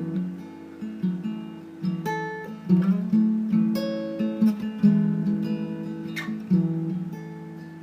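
Background music: acoustic guitar strummed and plucked in an instrumental passage of the song, with no singing.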